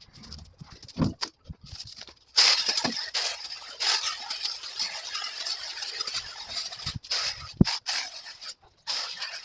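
Hedge trimmer cutting through brambles and branches: a dense crackling chatter of blades and snapping twigs that starts abruptly a couple of seconds in, with two brief breaks near the end.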